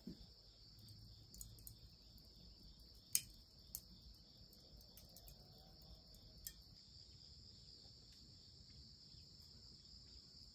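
Crickets chirring in a steady, faint, high pulsing trill, with a few sharp clicks over it, the loudest about three seconds in.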